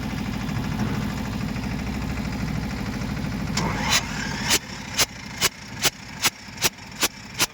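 Diesel engine running slowly with a steady low rumble; a little over halfway through, a short hiss sounds, the rumble drops away, and sharp regular clicks take over at about two and a half a second.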